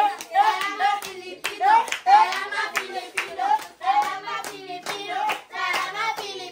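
Voices singing a short, repeated phrase in rhythm with steady hand clapping, about two claps a second.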